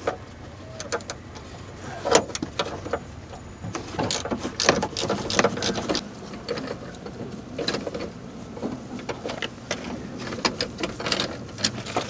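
Ratchet wrench with a T50 Torx bit clicking in rapid bursts of strokes, working loose a tight seat belt mounting bolt, with hands and tool knocking against the trim.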